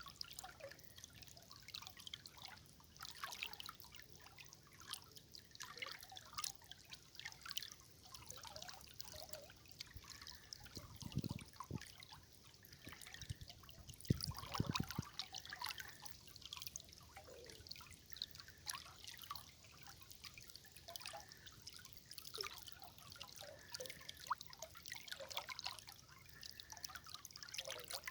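River water trickling and gurgling over stones, a dense run of small plinks and splashes, with two deeper gurgles around the middle.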